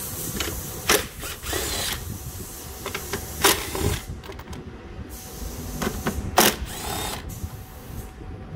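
A small power tool running in several short bursts while nuts are taken off a car engine; a few spells are louder than the rest.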